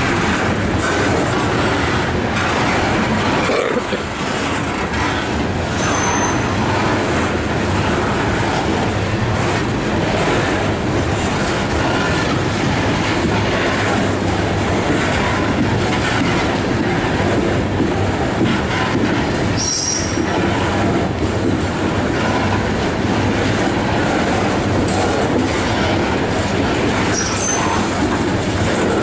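Coal hopper cars of a slow freight train rolling past close by, their wheels rumbling and clattering steadily on the rails, with a few brief high wheel squeals.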